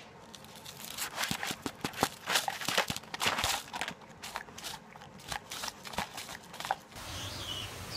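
Dog eating crunchy food off a paper plate, with quick irregular crunching and chewing bites. The crunching stops abruptly about a second before the end.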